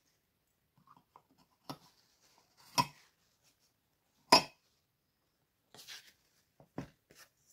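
Wooden box frame and its glass pane being handled and set down on a craft mat: a scattering of short knocks and clinks, the loudest a little past four seconds in.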